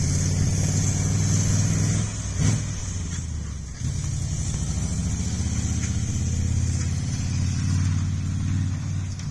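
Engine of a 1964 dump truck running with a low, pulsing note. It falls off about two seconds in, with a short knock, and picks back up about four seconds in.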